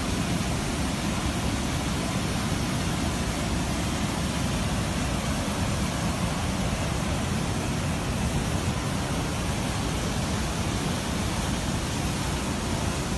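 Floodwater pouring over a weir, a loud steady rush of churning water that holds even throughout.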